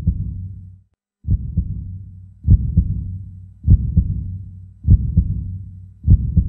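Heartbeat sound effect: deep double thumps, lub-dub, repeating about once every 1.2 seconds, each trailing off in a low rumble.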